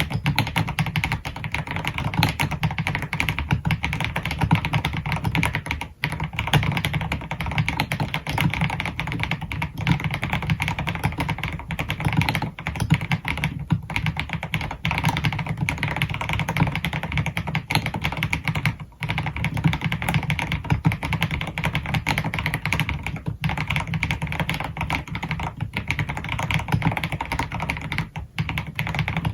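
Fast, continuous typing on an AKKO x MonsGeek MG108B full-size mechanical keyboard with Akko Piano switches and rounded PBT keycaps. The keystrokes run densely with a few brief pauses.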